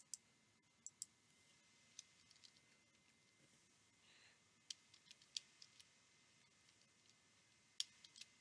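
Faint computer keyboard keystrokes and mouse clicks: scattered single clicks, then a quick run of keystrokes about five seconds in, as a short user name and password are typed.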